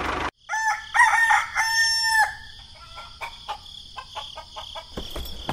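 A rooster crowing once, a cock-a-doodle-doo in several pitched syllables, followed by short, softer calls and clicks.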